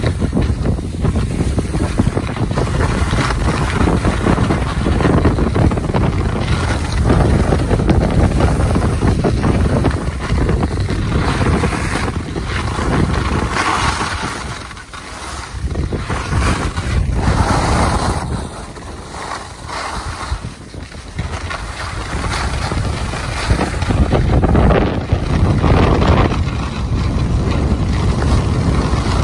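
Wind buffeting the microphone, a loud low rumble that rises and falls, with a couple of brief lulls.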